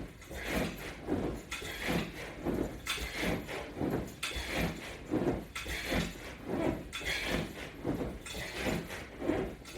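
A person doing repeated crunches with resistance bands: rhythmic breathing and body movement on an exercise mat, about three strokes every two seconds.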